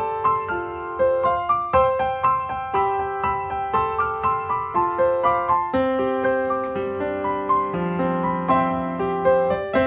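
Background piano music: a gentle melody in a steady run of notes over held lower notes.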